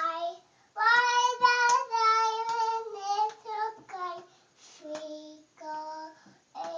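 A young child singing in a high voice, holding long notes in short phrases.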